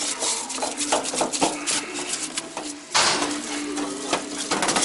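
Greasy engine parts being scrubbed and scraped in a solvent parts washer to break up the heavy grease: rapid, irregular rasping strokes with light metal clinks, louder for a moment about three seconds in.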